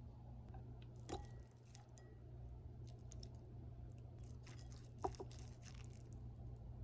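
Faint kitchen handling sounds: a few light clicks and knocks, the sharpest about five seconds in, over a steady low hum.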